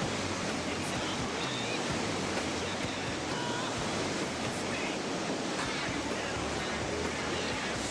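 Whitewater rapids of a flood-high river, a steady rushing of water.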